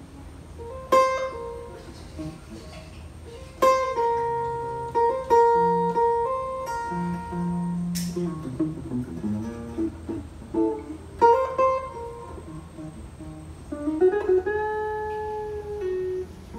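Solo guitar being played: ringing chords struck about a second in, near four seconds and again near eleven seconds, with single-note melody lines between them and a note gliding upward near fourteen seconds.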